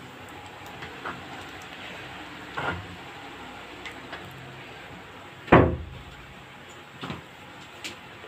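Metal kitchen utensils knocking: a slotted spoon and a ladle against an aluminium wok, a metal strainer and a batter bowl, a few separate knocks, the loudest about five and a half seconds in, over a steady background hiss.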